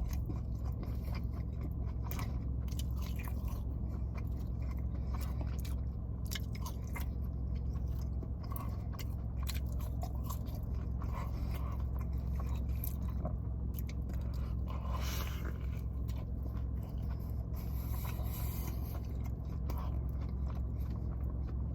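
Close-up chewing and biting of a chicken Big Mac sandwich: many small wet mouth clicks, over a steady low hum.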